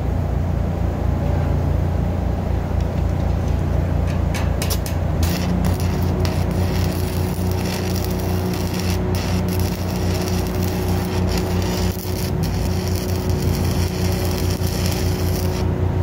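Stick welding: the arc crackling and sputtering as a bridging weld is run onto a steel bar joist, starting about five seconds in. Under it an engine drones steadily throughout.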